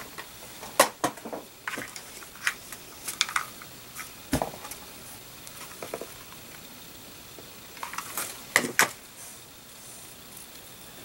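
Hands handling craft materials close to the microphone: scattered light clicks, taps and rustles as a ribbon strip is glued and pressed into place, with a couple of sharper clicks about eight and a half seconds in.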